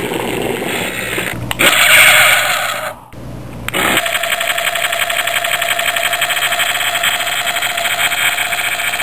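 Gun blast of a radio-controlled model M-8 armoured car about two seconds in, the loudest sound. From about four seconds comes a steady, fast-pulsing engine sound with a humming tone.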